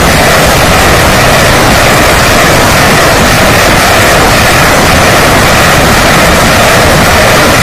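Salvo of rockets leaving truck-mounted multiple rocket launchers, one launch after another, heard as a very loud, steady rush of rocket motors with no breaks between them. The noise is so loud that the recording is overloaded.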